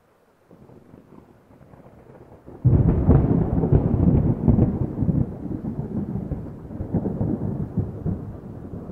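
Thunderstorm: a low rumble grows for about two seconds, then thunder breaks loudly about three seconds in and rolls on, slowly fading, over falling rain.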